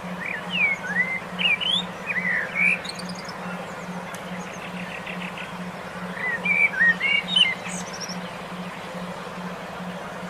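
A songbird sings two bursts of quick, slurred whistled notes, one near the start and one past the middle. Under the song runs a steady low tone that pulses about twice a second, with a constant hiss.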